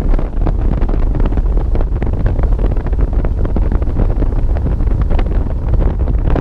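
Wind buffeting the camera's microphone: a loud, steady low rumble with rapid crackling throughout.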